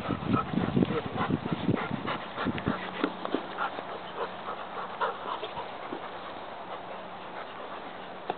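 A dog panting in quick, irregular breaths, strongest in the first few seconds and fainter after that.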